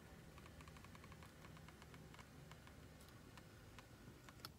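Near silence, with faint scattered small clicks and taps from a phone being handled and repositioned, and one sharper click near the end.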